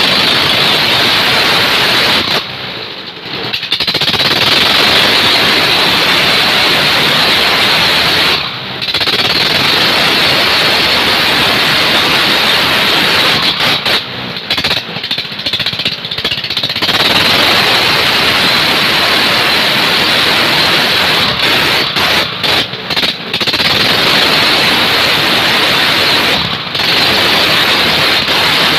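Small ketinting longtail-boat engine running hard at high throttle, spinning an air propeller: a loud, rapid, clattering engine note mixed with the rush of propeller wind. It dips briefly several times.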